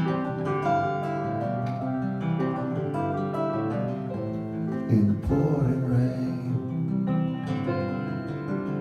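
Live band playing an instrumental passage of a rock song, with guitars to the fore.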